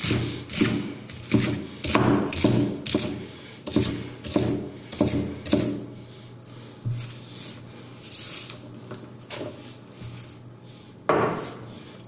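Chinese cleaver chopping spring onions on a wooden cutting board, the blade knocking on the board about twice a second. After about six seconds the chopping stops, giving way to a few softer knocks and rubbing as the cut onion is moved about, with one sharper knock near the end.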